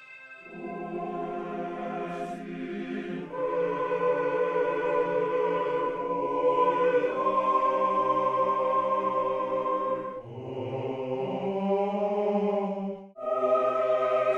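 Background music of slow, sustained chords that change every few seconds.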